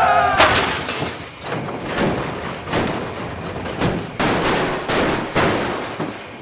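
Car crashing and rolling over: a loud impact about half a second in, then a series of heavy crashes about once a second that slowly fade, ending with the car upside down.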